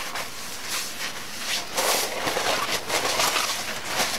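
Shop towel wiping the inside of an engine cylinder bore with mineral spirits: a quick, uneven run of rubbing swishes, several strokes a second.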